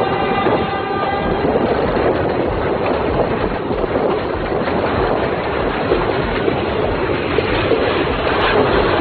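Passenger train crossing a viaduct, heard from an open carriage window: a steady rumble and rattle of the carriages with air rushing past. A brief pitched tone sounds over the first second and a half.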